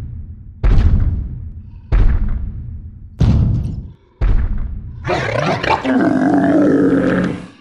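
Rancor monster sound effect: four heavy, booming thuds about a second and a quarter apart, each trailing off in a low rumble, then a deep growling roar lasting about two and a half seconds.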